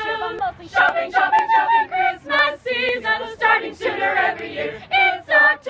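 Youth choir singing a cappella, several voices together in short, lively phrases.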